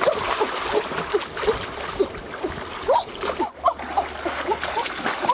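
Shallow, muddy stream water splashing and sloshing as people wade through it and snatch at a fish with their hands, with many quick water plinks over the rush of the splashes.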